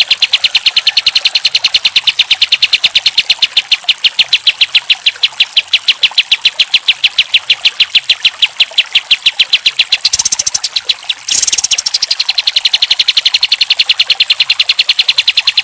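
Kapas tembak bulbul singing a long rapid run of evenly repeated high chirping notes, several a second. About two-thirds of the way through, the run breaks off for about a second and then resumes.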